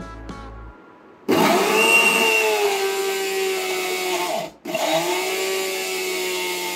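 Electric mixer grinder with a steel jar grinding chopped onion and green chilli into paste. The motor starts about a second in, its whine settling slightly lower in pitch, then stops for a moment and starts again.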